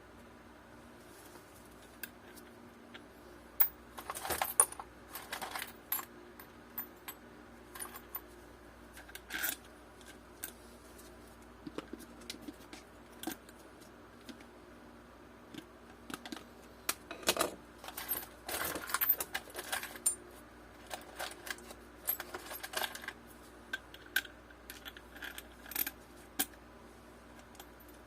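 Small metal nuts and washers clinking and clicking as they are handled and fitted onto a wheel axle bolt, in irregular bursts with a busy stretch about four seconds in and another from about seventeen to twenty seconds in.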